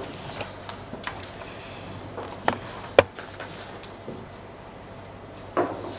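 Quiet lecture-room tone with a few short, sharp clicks or knocks, the sharpest about three seconds in.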